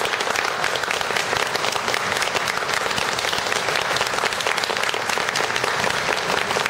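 Crowd applauding, many hands clapping at a steady level.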